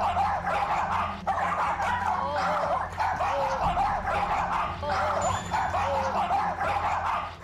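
Two small dogs barking and yapping excitedly at a man, with rapid, overlapping high-pitched barks that keep on throughout.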